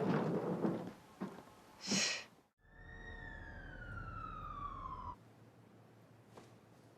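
A long exhaled sigh, then a single pitched tone that glides steadily downward for about two and a half seconds and cuts off suddenly. It sounds like a drama's scene-transition sound effect.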